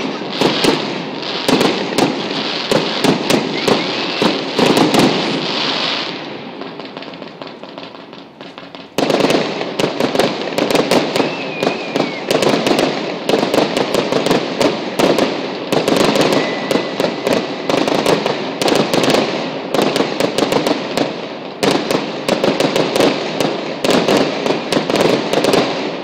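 Fireworks display: rapid, dense volleys of bangs and crackles. They die down about six seconds in, then a sudden loud volley starts about nine seconds in and keeps going, easing off near the end.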